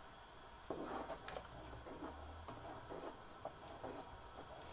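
Faint, irregular soft pops and taps from a pot of thick carrot kheer (rice, carrots, milk and cream) cooking on the stove.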